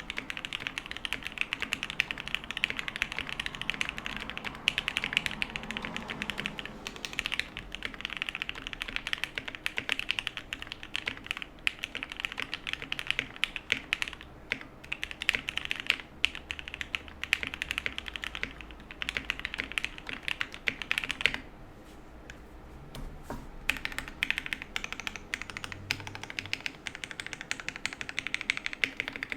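Typing on a Frog TKL custom mechanical keyboard with lubed Gateron Black Ink linear switches, an aluminium plate, plate and case foam, and GMK keycaps: a fast, continuous run of keystrokes. The typing stops briefly about two-thirds of the way through, then resumes.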